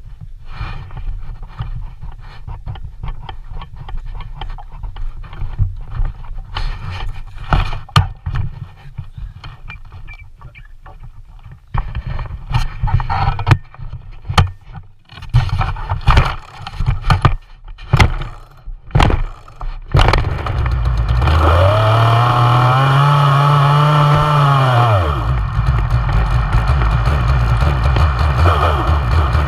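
Two-stroke chainsaw handled and set down with knocks, then several sharp cord pulls. About twenty seconds in the engine catches, revs up and back down for a few seconds, then settles to an idle.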